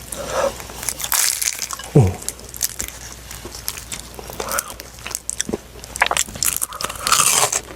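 Biting and crunching into a Burger King sweet potato cream cheese pie, with chewing between the crunches. There is a short falling voice sound about two seconds in.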